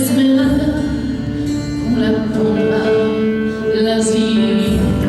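A song with a backing track and a woman singing long held notes.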